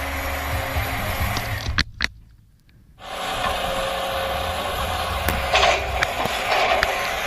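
Small motors and gears of a radio-controlled model construction vehicle running steadily, with scattered clicks and a short scraping patch. The sound cuts out for about a second a couple of seconds in, then resumes.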